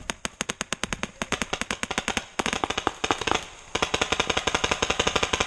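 Paintball marker firing in rapid strings of about ten shots a second, with two short breaks, about two and a half and three and a half seconds in.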